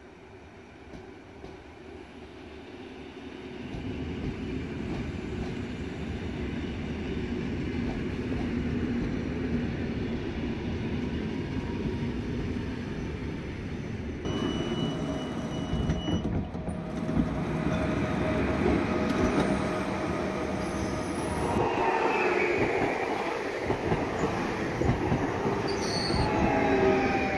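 Koleje Wielkopolskie EN76 (Pesa Elf) electric multiple unit coming into the station, its rumble growing louder from about four seconds in. Over the last several seconds, as it runs alongside the platform, its wheels squeal with wavering high tones.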